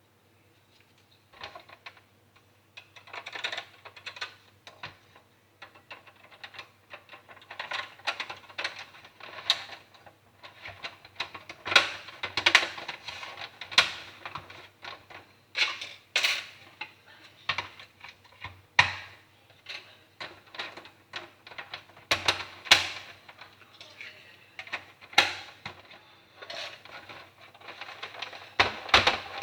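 Irregular clicking and clattering of small hard parts being handled, with quicker runs of clicks like typing.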